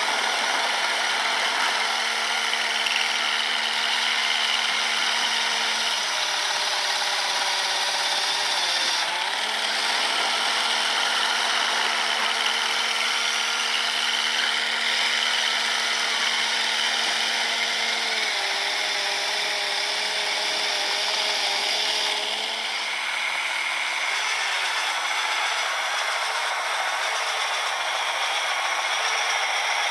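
Electric motors of a 3D-printed RC snowblower and its RC trail truck running, a steady whine over a high hiss. The whine drops in pitch and comes back up several times as the motor speed changes.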